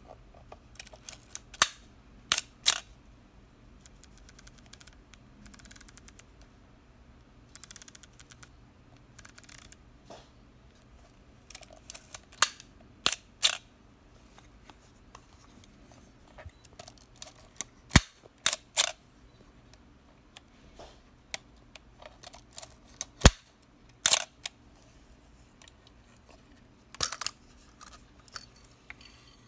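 Asahi Pentax SV mechanical SLR worked by hand: its cloth focal-plane shutter firing with sharp clicks, several coming in close pairs. Softer spells between the clicks are the film-advance lever being wound and the camera being handled.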